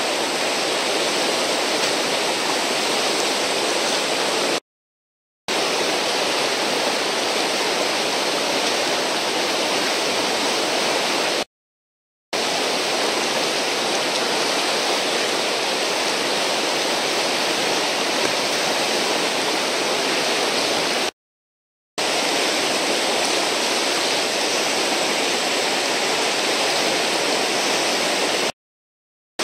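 Steady rush of whitewater from a river's standing wave. It cuts to silence four times, each gap under a second long.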